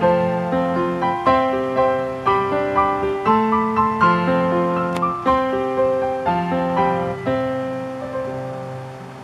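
Background music: a gentle piano melody with notes struck in a steady rhythm, dying away near the end.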